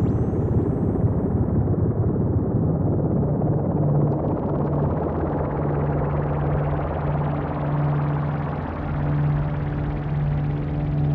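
Electronic drone music: a dense, rumbling noise texture from self-oscillating Korg MS-20 filters driven through fuzz and delay feedback, over a low steady drone from a Moog Subsequent 37. Thin high whistling tones rise in pitch during the first couple of seconds, and the low drone note stands out more clearly from about four seconds in.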